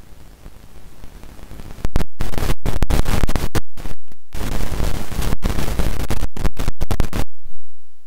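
Loud hiss of static that starts suddenly about two seconds in, breaks off in several abrupt dropouts, and cuts out about a second before the end.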